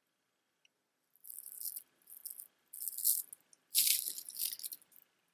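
Strand of clear quartz chips rattling and clattering as it is handled, in four short bursts, the last one the loudest.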